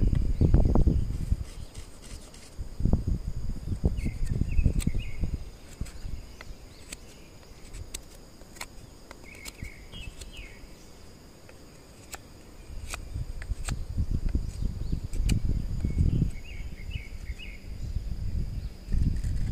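Insects sing steadily at a high pitch, with short chirping phrases three times. Scattered sharp clicks and several bursts of low rumble come and go.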